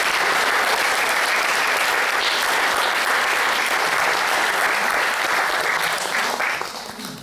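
Audience applauding, a steady sustained round of clapping that dies away near the end.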